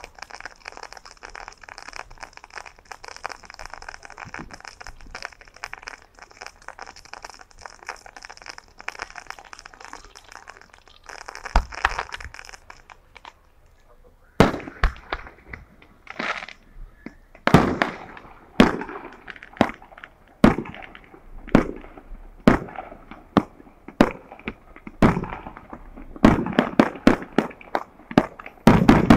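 Fireworks going off: dense crackling at first, then a run of loud booms from aerial shells bursting about once a second, each with an echoing tail, coming quicker near the end.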